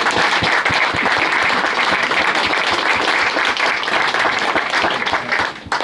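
Audience applauding: many hands clapping at once, loud and steady, cutting off suddenly near the end.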